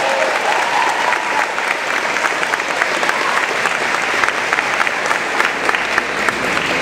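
Audience applause: many hands clapping steadily in a large hall.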